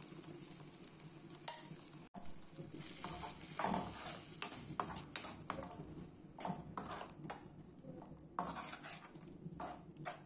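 Perforated steel spatula stirring a thick masala paste in a black kadai, with repeated irregular scrapes and clinks of metal on the pan over a steady frying sizzle. There is a brief break about two seconds in, and the stirring gets busier after it.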